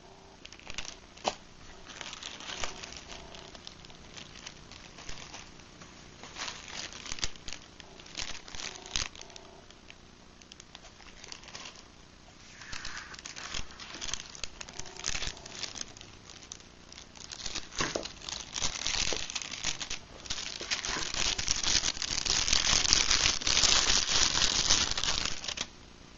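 Clear HDPE plastic bags crinkling and rustling as they are handled and unwrapped, with scattered clicks and taps. Near the end the crinkling becomes dense and continuous for several seconds, then stops abruptly.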